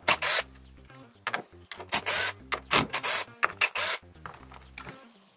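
Scraping and rubbing in short, irregular strokes, a hand tool worked against hard material. It comes just before a hole through the paper-clay mold breaks through.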